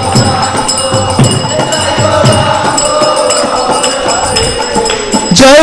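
Kirtan music: a group of voices softly singing the response, with hand cymbals ringing and a drum beating. A single lead voice comes back in loudly near the end.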